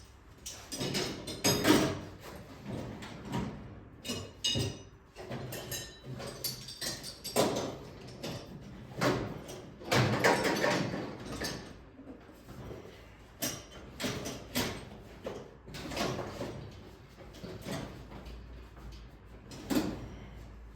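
Irregular clanks, knocks and scrapes of metal tools and engine parts being handled on a workbench. The loudest knocks come about two seconds in and again about ten seconds in.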